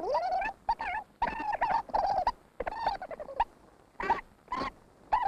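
Cartoon hedgehog sound effects: squeaky, chattering calls, then a few short, sharp hiccups in the last second and a half.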